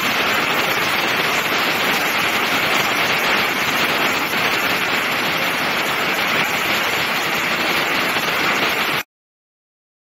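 Large waterfall, a heavy curtain of water plunging: a loud, steady rushing hiss that cuts off abruptly about nine seconds in.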